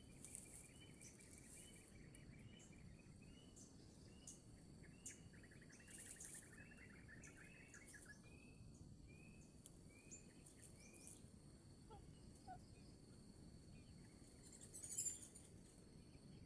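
Faint ambience of birds and insects: a small bird repeats short high notes about twice a second, with a quick trill partway through, over a steady high insect drone. A brief louder chirp comes near the end.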